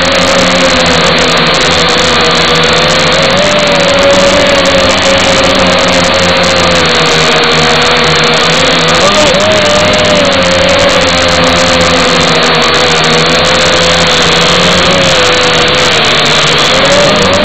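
Zoopa Cruiser Q420 quadcopter's motors and propellers buzzing steadily, picked up close by the drone's own onboard camera. The hum's pitch wobbles up and down briefly a few times, about three and a half, nine and seventeen seconds in.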